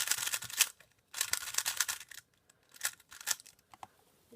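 GAN 356 Advanced speedcube being turned fast, its plastic layers clicking in quick runs of turns. There is a short pause about a second in, then a few single turns near the end.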